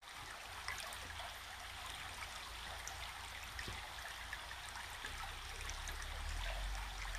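Creek water running steadily, a continuous rushing hiss, with a low rumble underneath that grows near the end.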